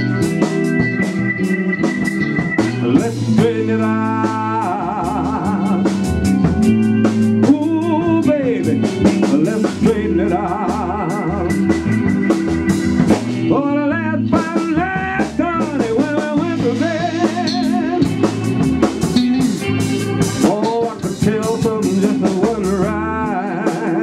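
Slow blues-soul song: a man's voice singing long wavering runs into a microphone over guitar and drums.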